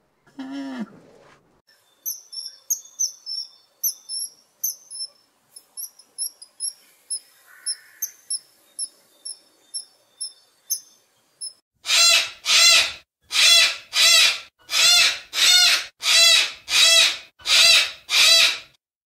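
A bird chirps quickly and high for several seconds. It is followed by a steady series of about ten loud, harsh screeches from a Moluccan (salmon-crested) cockatoo. A short low falling call is heard at the very start.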